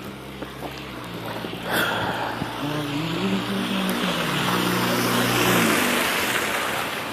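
A motor vehicle drives past, its engine note and tyre hiss on the snowy road swelling to a peak about five seconds in and then fading. A short sharp knock is heard about two seconds in.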